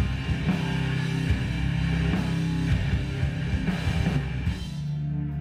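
Rock music with drums and guitar; about four and a half seconds in, the drums drop out and it settles into steady held notes.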